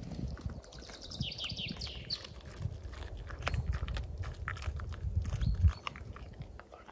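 A puppy playing on grass: scuffling and mouthing sounds over a low rumble, with a quick run of high chirping calls about a second in and short high calls later. A loud thump near the end.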